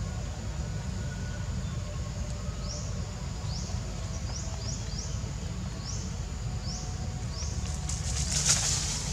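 Outdoor ambience: a steady low rumble with a series of short, rising, high-pitched chirps. A brief hissing rush comes near the end.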